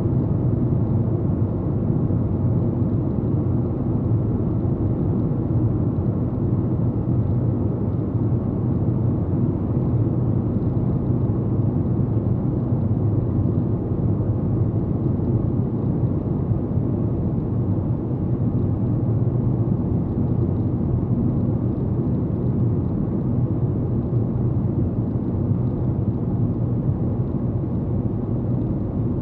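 Steady rumble of road and engine noise heard inside a car's cabin while it drives at about 65–70 km/h.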